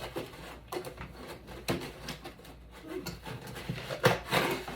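Packing foam and small parts being handled and set down: scattered light knocks and rustles, with a louder short sound about four seconds in that carries a faint voice-like pitch.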